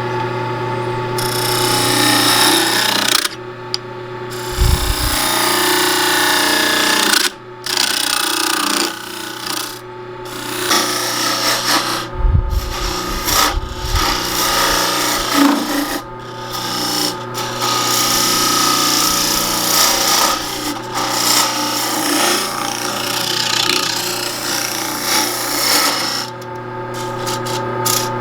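A turning tool cutting into a spinning cedar bowl on a wood lathe over the steady hum of the lathe motor. The scraping cut stops and restarts several times as the tool is lifted and set back against the wood. This is the centre being shaped, leaving a small nub to hold a ring.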